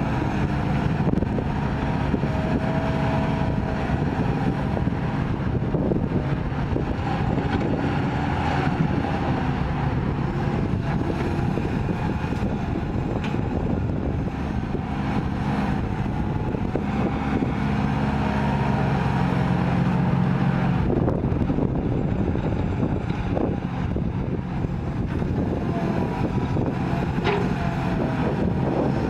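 Excavator's diesel engine running steadily under working load while it digs and loads soil into a truck, its note shifting a little as it works. There are a couple of brief sharp knocks.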